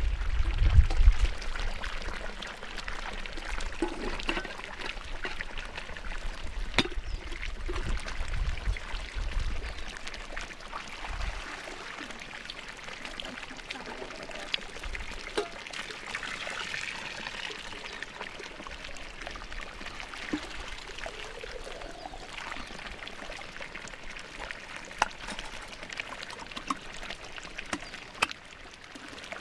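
Hot sulfur-spring water pouring steadily from an outlet pipe as a metal kettle is filled under the flow. Low rumbles on the microphone near the start.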